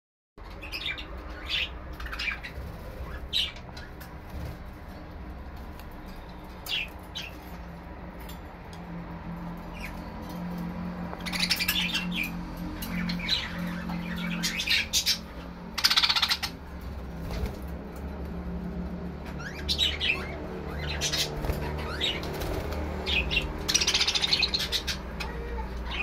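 Caged budgerigars chirping and chattering in short scattered calls, busier in the second half, over a low steady hum.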